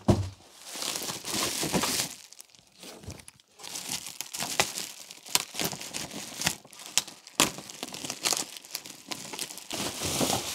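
Plastic bubble wrap crinkling and rustling with many sharp crackles as it is handled and unwrapped from a package. A single thump right at the start.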